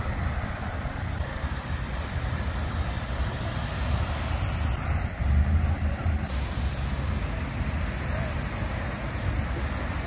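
Steady rush of a water fountain's falling water, with wind buffeting the microphone as a low rumble that swells briefly about five seconds in.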